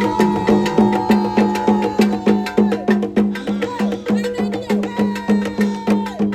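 Music with a fast, even beat of repeated low notes, about four a second, under long held higher notes.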